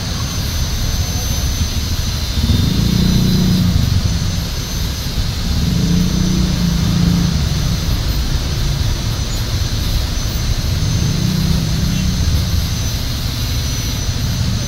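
Steady din of motorcycle and scooter engines running, with a low engine hum that swells up three times, as when an engine is revved.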